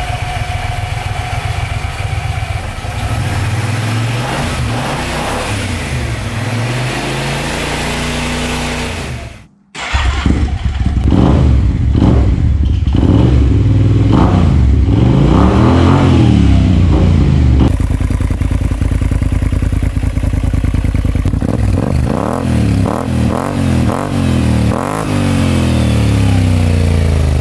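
Kymco AK550 maxi-scooter's parallel-twin engine running through an aftermarket MIVV Speed Edge exhaust, revved repeatedly on the stand so the pitch rises and falls in blips. The sound cuts out briefly about nine seconds in, and the revs that follow are louder and sharper.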